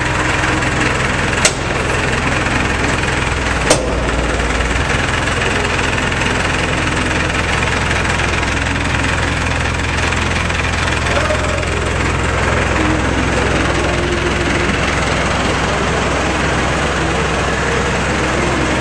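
Clark forklift's engine running steadily while it moves a ladder truck chained to its forks, the low engine note shifting about five seconds in. Two sharp knocks sound in the first few seconds.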